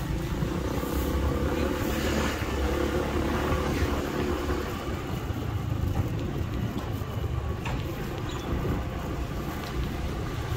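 Street traffic: a steady low rumble, with the engine of a passing vehicle heard for the first few seconds before it fades away.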